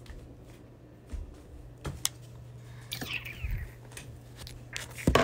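Handling noise: scattered light taps, clicks and rustles, with a sharper click near the end, over a steady low hum.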